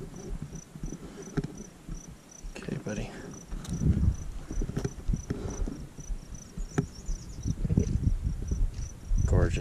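An insect chirping steadily in the background: a high, thin pulse repeating evenly, about three times a second. Under it come irregular low rumbles and knocks on the microphone, loudest about four seconds in and near the end.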